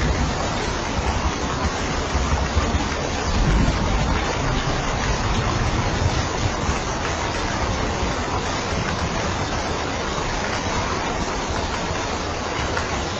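Steady heavy rainfall, an even hiss of rain on a roof. A low rumble swells briefly about four seconds in.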